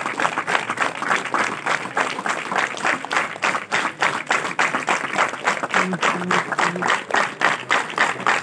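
A crowd clapping in unison, a steady rhythmic beat of about three claps a second. Three short low tones sound about six seconds in.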